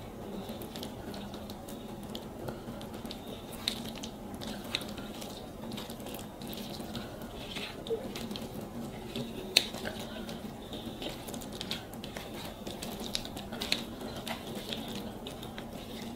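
Hands mixing and squeezing rice with fish curry on plates: soft, scattered wet squishes and small clicks over a steady low hum.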